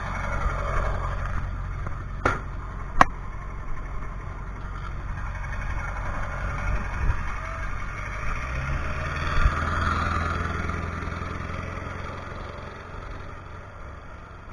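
Pickup truck engine running as it pulls away towing a car trailer, with two sharp clicks about two and three seconds in. The engine sound swells around ten seconds in, then fades as it moves off.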